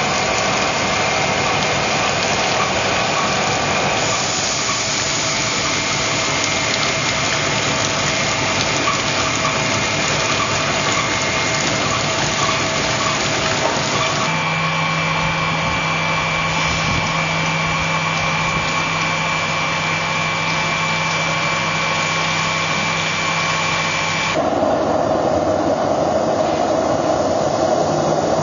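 Gold shaking table and the processing plant's machinery running steadily, a loud mechanical drone with water washing over the table deck. The sound changes abruptly a few times, and near the end it becomes a duller steady rushing noise.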